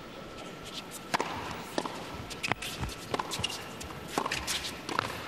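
Tennis point on an indoor hard court: a serve and rally, the ball struck by rackets and bouncing on the court, heard as a string of sharp knocks about every half second to a second, with the players' footsteps.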